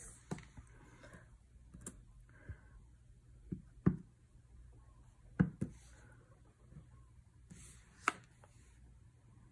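Light knocks and clicks of a clear acrylic stamp block being tapped onto a Memento ink pad and set down on card stock on a tabletop. A handful of separate taps, the firmest about four and five and a half seconds in.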